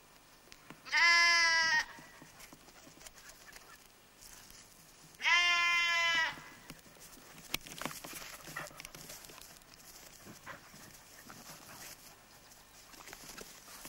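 A lamb bleats twice, each call about a second long and about four seconds apart.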